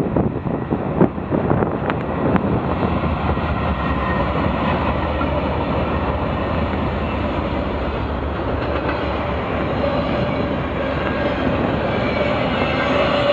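Norfolk Southern double-stack freight train passing close by: the diesel locomotives rumble past, then the loaded well cars roll by with steady wheel-on-rail noise. A steady whine joins in near the end.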